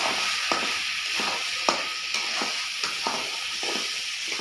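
Chicken and vegetables sizzling in a kadai on a gas flame while a spatula stirs and scrapes the pan, with a steady hiss and scraping strokes about twice a second.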